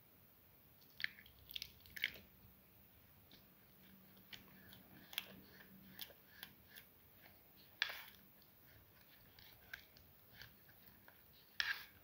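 Spatula stirring thick chickpea-flour batter in a bowl: faint, irregular wet squelches and scrapes, with sharper clicks of the spatula against the bowl about a second in, around eight seconds and near the end.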